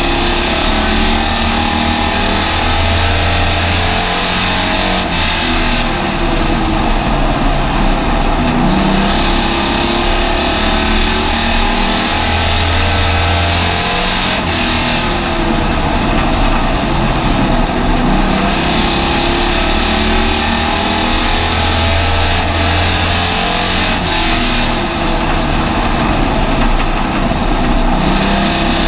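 Hobby stock race car's engine heard from inside the cabin, pulling hard and easing off in a repeating cycle about every nine to ten seconds as it laps a paved oval.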